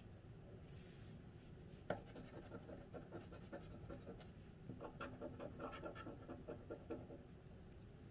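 Metal scratcher scraping the latex coating off a paper scratch-off lottery ticket in quick short strokes. A short spell of scraping comes about two seconds in, opening with a sharp tap, and a longer spell runs from about five to seven seconds in.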